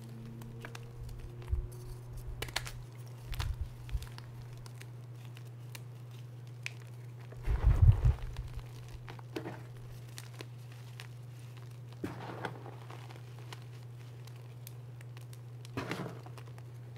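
Reformed gym chalk (Cap and Easy Grip blocks) being crushed and squeezed by hand, crumbling and crunching in scattered handfuls, the loudest crunch about halfway through and another near the end. A steady low hum runs underneath.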